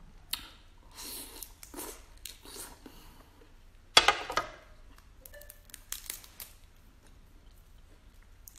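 Close-up handling and eating of large cooked red prawns: shells crackling and tearing as they are pulled apart and peeled, with small mouth sounds. A sharp, louder knock about four seconds in.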